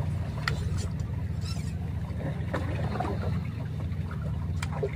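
Low, steady engine drone of a boat on the water, with a few faint clicks over it.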